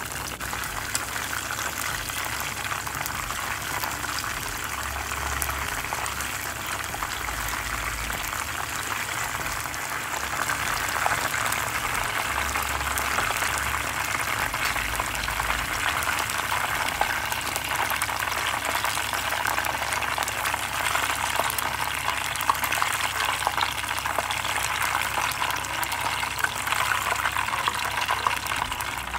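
Battered fritters deep-frying in hot oil: a steady sizzle with dense fine crackling, growing a little louder partway through.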